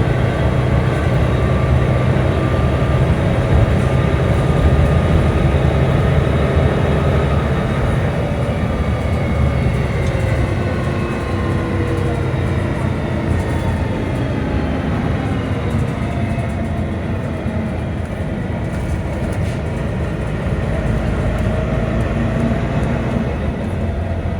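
Volvo B9TL double-deck bus running: a steady low rumble with several odd whining tones over it that slide down in pitch through the middle stretch.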